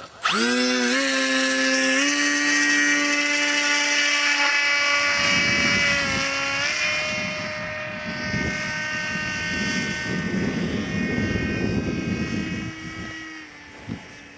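Brushless electric motor and propeller of an EPP foam FPV model plane spinning up sharply for a hand launch, then holding a steady whine with many overtones. The pitch dips and steps back up about six seconds in. A low rushing noise runs under the whine through the middle, and the whine fades near the end.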